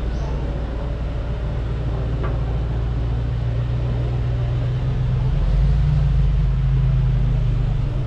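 A motor vehicle's engine running close by, a steady low hum that grows louder about five seconds in.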